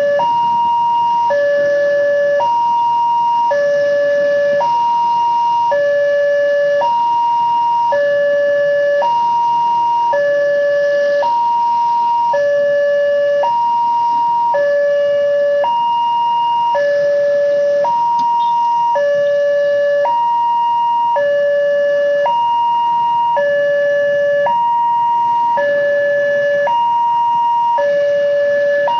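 Indonesian railway level-crossing warning siren, an uncommon siren type, sounding a steady hi-lo pattern that alternates between a higher and a lower tone about once a second.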